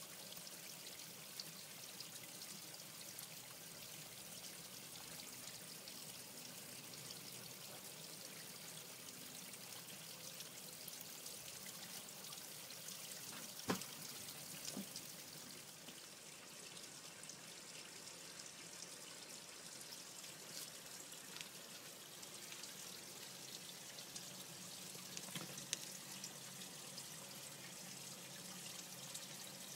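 Faint, steady trickle of water running into a garden pond, with two sharp clicks near the middle.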